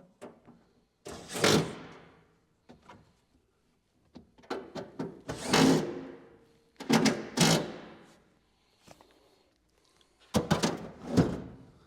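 Clunks and thumps of a truck seat being worked into place in the cab: four bouts of knocking, each dying away within about a second.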